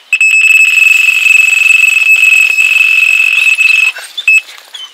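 Electronic carp bite alarm sounding one loud continuous high tone for nearly four seconds, then a single short beep: the sign of a run, line being pulled off the reel fast as a carp takes the bait.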